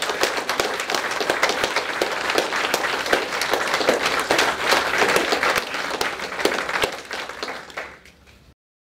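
Audience applauding: dense, even clapping that dies away near the end and then cuts off.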